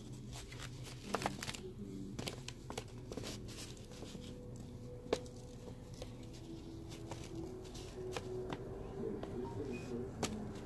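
A sheet of paper being folded and creased by hand: soft rustling and crinkling with scattered light clicks, two sharper ones about a second in and about five seconds in.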